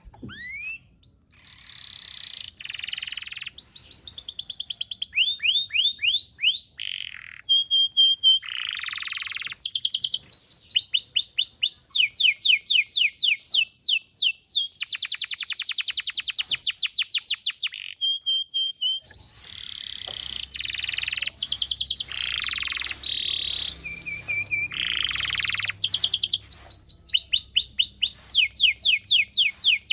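Canary singing a long, continuous song of fast trills. It moves between rolls of rapid repeated rising sweeps, short bursts of chirps and a few held whistled notes, changing phrase every second or two. A faint low hum comes in a little past the middle.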